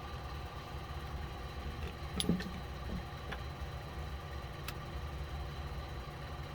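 Steady low mechanical hum, with a few small plastic clicks and a light knock about two seconds in and another click near five seconds, from handling the opened Xbox One controller's parts.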